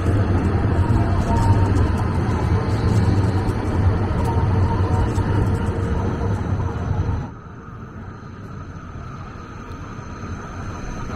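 Trams passing close by on street track: a loud, steady low rumble of wheels and motors with scattered clicks. About seven seconds in the sound drops off sharply to a quieter street, where an approaching tram grows louder near the end.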